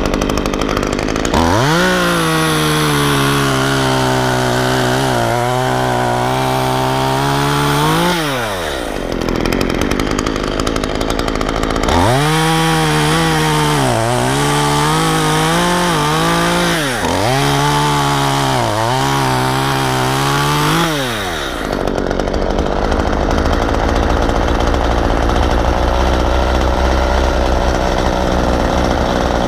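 Chainsaw cutting wood: the saw revs up about a second in, holds a steady high pitch for several seconds and drops back, then runs again in a series of short cuts with its pitch sagging under load each time. For the last several seconds a steady low rumble without a clear pitch takes over.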